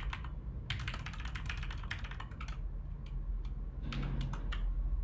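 Typing on a computer keyboard: a quick run of keystrokes about a second in, then a few scattered key presses near the end, over a steady low hum.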